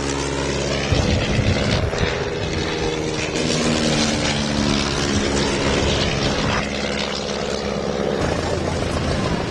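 De Havilland Canada DHC-1 Chipmunk's Gipsy Major four-cylinder inline engine and propeller running at display power as the aircraft flies past, a steady drone. A little after eight seconds in, the sound changes to the engine running with the aircraft on the ground.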